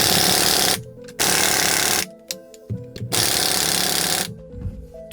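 Power tool run in three bursts of about a second each, backing off threads to release the compressed front coil spring from the strut. Background music plays underneath.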